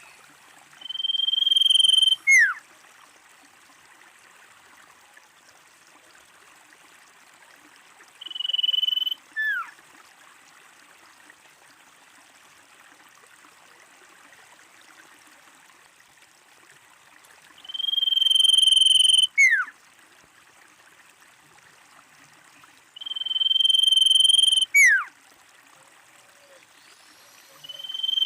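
Common iora whistling: a long, steady high note, then a short note that drops sharply in pitch. The call repeats five times with pauses of several seconds between, over a faint hiss.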